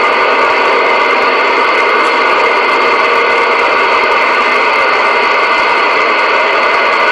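CB radio receiver's speaker hissing with steady static while no station is transmitting on channel 28.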